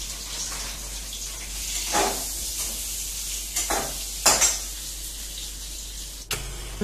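Metal spoon stirring food frying in a pan on a gas stove: several sharp clinks against the pan over a steady sizzle.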